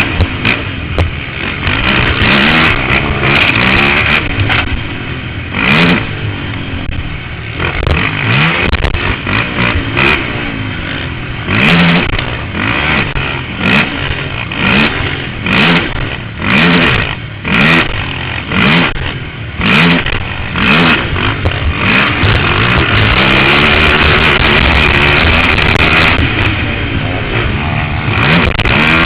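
Can-Am DS450 quad's single-cylinder four-stroke engine revving hard over and over: it rises and drops every second or two, then holds steady high revs for several seconds near the end.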